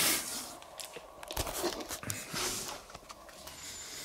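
Rummaging in a cardboard box of jars and mugs: rustling and scraping, with a single knock about a second and a half in and another rustle a second later, then soft handling noise as the camera is picked up.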